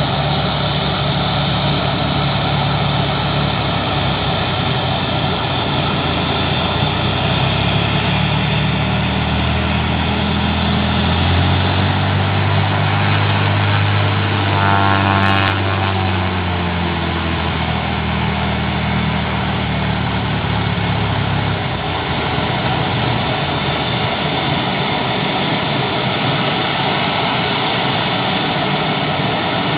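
Cessna U206G Stationair's six-cylinder piston engine and propeller running at low taxi power. It grows louder as the plane rolls past close by, and its tone shifts slightly about halfway through as it goes by.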